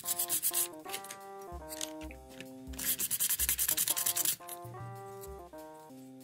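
Fiberglass pen scratching back and forth in quick strokes along the edges of a model locomotive's metal current-collector plate, cleaning off dirt. There are two spells of scrubbing, one at the start and a longer one about three to four seconds in. A light background melody plays throughout.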